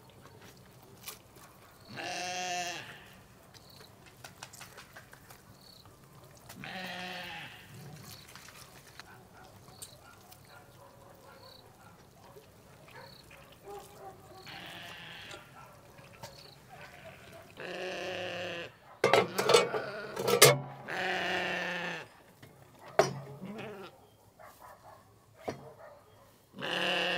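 Sheep bleating repeatedly, about six separate calls a few seconds apart. A few sharp knocks come in the middle and are the loudest sounds.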